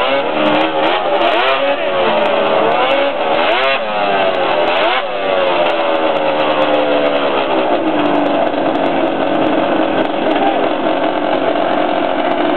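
The 1800cc drag-racing snowmobile's engine revving in repeated rises and falls, then dropping in pitch in one long slide and running steadier at a lower pitch.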